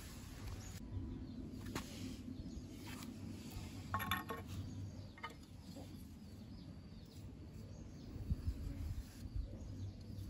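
Light handling taps outdoors. About four seconds in, a ceramic bowl clinks down onto the stone tile with a short ring.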